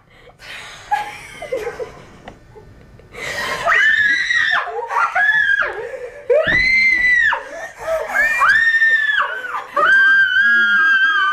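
Girls screaming in mock fright: after a quieter start, about five high-pitched screams in a row from about three seconds in, the last one held longest.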